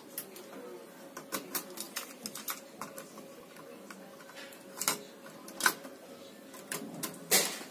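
Mechanical clicks and clunks from a Mitsubishi DT-7 cassette deck being loaded: the eject key, the cassette door opening, a cassette pushed into the holder and the door snapped shut, then a soft-touch transport key pressed. The clicks come in irregular clusters, with the loudest clunk near the end.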